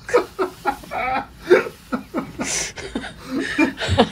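People laughing, in short chuckles.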